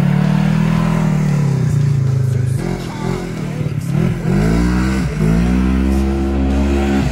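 Polaris side-by-side UTV engine revving up and down repeatedly as it is driven hard across loose dirt.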